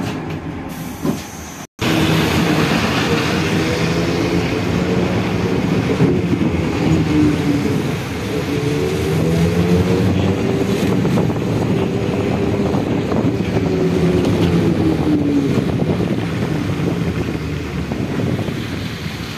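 Trolleybus in motion, heard from inside: steady running noise with an electric whine that slowly rises and falls in pitch. The sound cuts out briefly about two seconds in.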